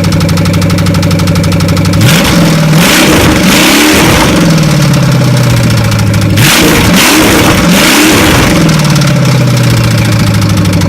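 1993 Chevy truck engine running through open headers: idling, then revved twice, each time rising and falling back to idle. It carries a rod knock, the sign of a worn connecting-rod bearing.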